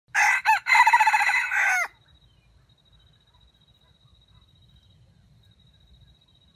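A red junglefowl rooster crows once, about two seconds long. The crow catches and breaks twice near its start, in a stuttering way, and then runs on to a falling final note.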